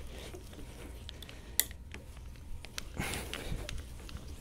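Hand brace turning an auger bit boring into softwood: a faint crunching of the bit cutting, with many small scattered clicks and one sharper click about a second and a half in. A short breathy rush comes about three seconds in.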